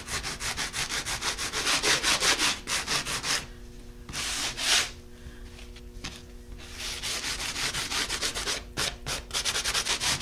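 Sanding sponge scrubbed rapidly back and forth, several strokes a second, over a textured, chalk-painted and dark-waxed wooden frame, distressing the finish down to the white texture paste. The strokes stop for about three seconds in the middle, apart from one short scrape, then start again.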